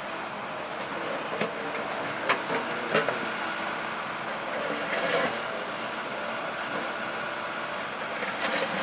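Excavator working on a dug-up street: its engine runs steadily under a few sharp knocks and clanks, a short scraping rush about five seconds in, and a cluster of knocks near the end.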